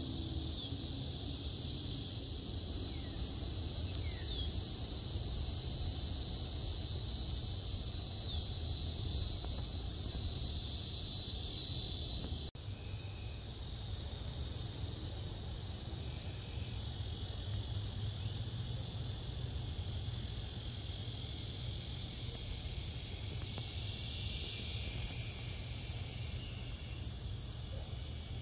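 Summer evening chorus of insects, a steady high-pitched buzz that holds throughout, over a low steady rumble. The sound drops out for a moment about twelve seconds in.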